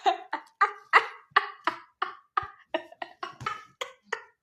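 A small dog yapping in a quick, even run of short, high barks, about three a second.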